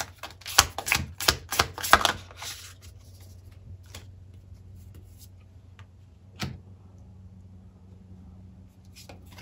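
Cards being handled on a table: a quick run of sharp clicks and taps over the first two seconds or so, then a single tap a little past halfway and a couple more near the end, over a faint steady hum.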